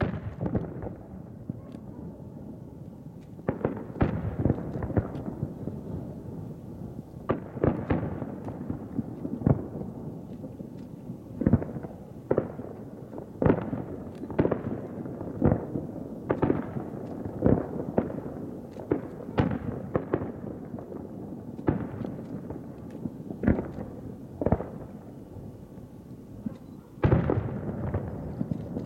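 Aerial firework shells bursting: sharp booms, each trailing off in a rolling echo. One comes near the start, then after a pause of about three seconds they follow at roughly one a second, with a loud one near the end.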